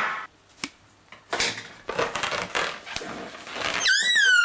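Rustling and tearing noises of a roll of adhesive tape being worked with scissors over a rubber balloon. Near the end comes a short squeaky whine that rises and falls: the balloon's rubber squeaking under the fingers.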